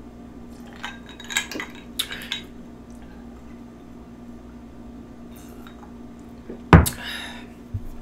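A woman drinking from a glass, with a few soft sounds in the first couple of seconds. Near the end comes a sharp, loud knock with a brief ring as the drinking glass is set down on the table, followed a second later by a lighter knock.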